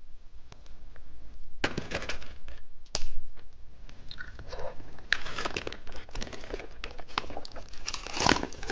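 Plastic candy packaging crinkling and tearing as it is opened and handled: irregular crackly rustles and small sharp clicks.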